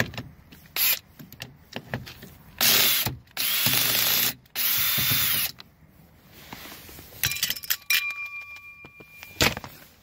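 Cordless drill/driver backing a screw out of a truck's interior door panel: three short bursts of the motor running with a whine, then scattered clicks and knocks.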